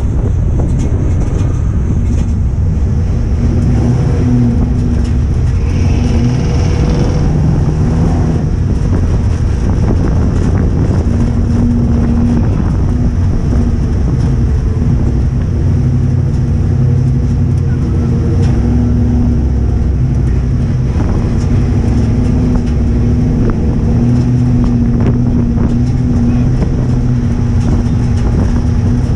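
Ford Crown Victoria race car's V8 engine running hard under load, heard from inside the stripped-out cockpit. Its note shifts in pitch as the throttle comes on and off, over a steady din of chassis, tyre and wind noise.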